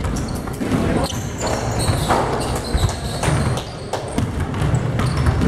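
Several basketballs being dribbled and bounced on a hardwood gym floor during warmups, their thuds overlapping in an irregular rhythm.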